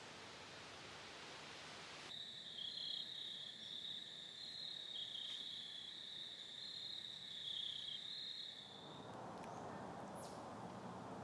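Insects, crickets or katydids, trilling steadily in a high pitch, starting abruptly about two seconds in and fading out near the end. A faint, even hiss fills the rest.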